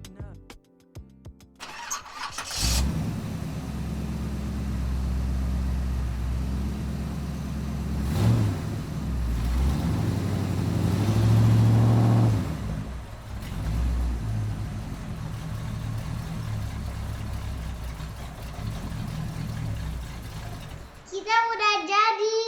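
Car engine starting about two seconds in and running steadily, swelling as if revved near the middle, then cutting off shortly before the end.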